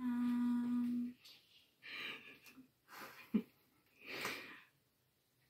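A person hums one steady, closed-mouth note for about a second. A few soft breathy exhalations follow, like quiet laughter.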